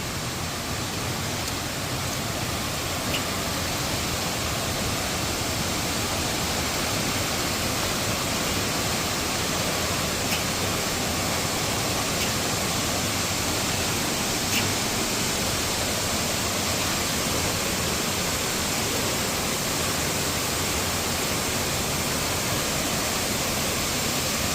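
Waterfall rushing steadily, a dense even roar of falling water, with a few faint ticks.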